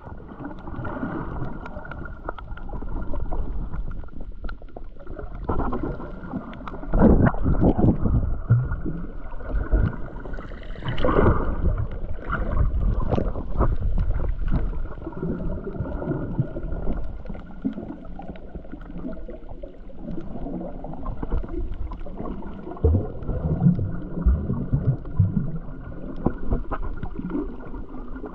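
Muffled water sound picked up by an underwater camera while snorkeling: sloshing and gurgling with scattered bubble pops and several louder surges of water movement.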